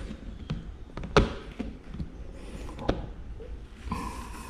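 White plastic wall-plate cover being fitted by hand over an electrical outlet: a few sharp plastic taps and clicks, the loudest about a second in and another near three seconds.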